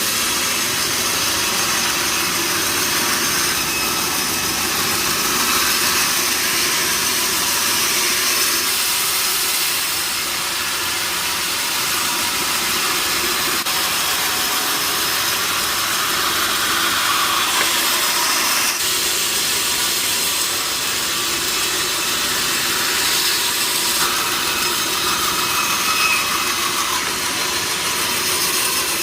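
Sawmill saw and machinery running steadily: a loud, even hissing noise with no pauses, its pitch shifting briefly a couple of times.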